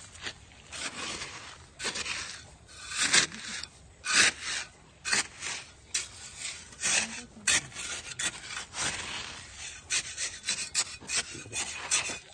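Rough scraping or rubbing strokes, irregular in timing and coming closer together in the second half.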